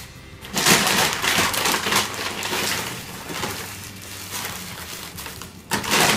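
Paper rustling and crinkling as wrapped cheeseburgers are pulled one by one out of a McDonald's paper takeaway bag and set down on a table. The rustling is loudest about a second in and again near the end.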